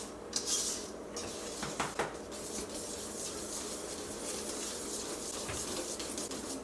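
A utensil stirring cake batter in a stainless steel mixing bowl, with irregular scraping and clinking of metal against the bowl's sides.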